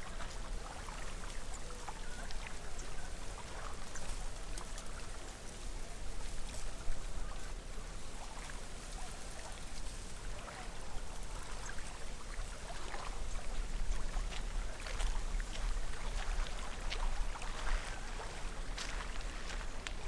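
Steady outdoor water sound, like water lapping or trickling, with many small scattered clicks and crackles and a steady low rumble underneath.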